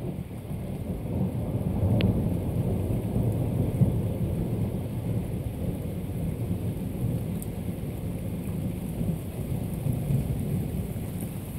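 Thunder: a long, low rolling rumble that builds over the first couple of seconds, is loudest a few seconds in, and keeps rolling on slowly.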